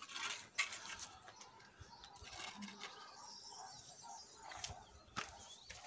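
Birds chirping faintly, with scattered sharp clicks and knocks; the sharpest knock comes about half a second in.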